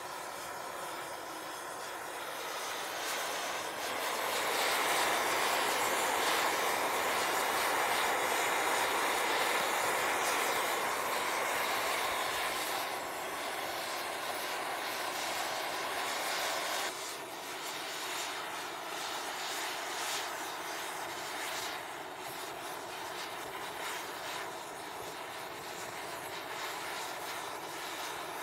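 Handheld gas torch hissing steadily as its flame melts brazing rod into a crack in a cast iron wood-stove plate. The hiss grows louder about four seconds in and drops back suddenly a little past the middle.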